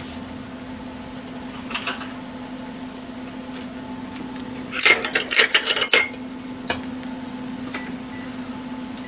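Metal ladle stirring soup in a small aluminium saucepan, with a quick run of clinks and scrapes against the pan about five seconds in and a few single taps. A steady low hum runs underneath.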